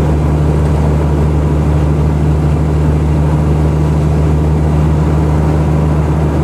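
Steady engine drone and road noise heard inside a vehicle's cab while driving, an even low hum that does not change.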